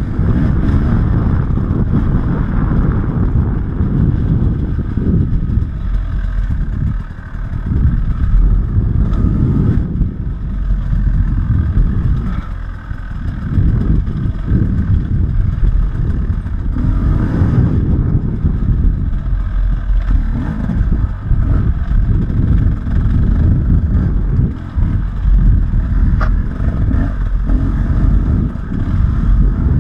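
Enduro dirt bike engine running hard, its note rising and falling as the throttle is worked, with short drops off the throttle several times.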